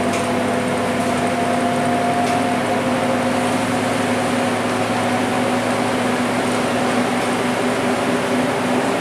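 Interior drone of a Scania K230UB city bus and its 9-litre five-cylinder diesel running steadily at cruising speed, with tyre and road noise. A few steady tones hold nearly level throughout.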